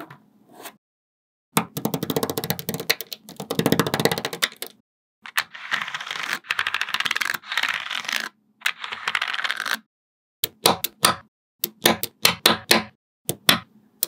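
Small magnetic balls clicking together: a long stretch of rapid clicking and rattling, broken briefly about five seconds in, then separate sharp snaps as single balls click into place.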